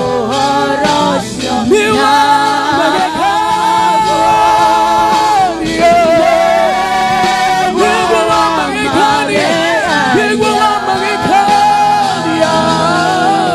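Gospel worship song: a lead voice sings long held, wavering lines over sustained keyboard-style accompaniment.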